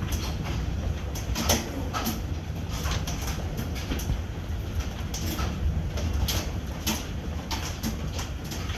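Hail falling and striking hard surfaces: a steady rush dotted with irregular sharp clicks and knocks, over a low steady rumble.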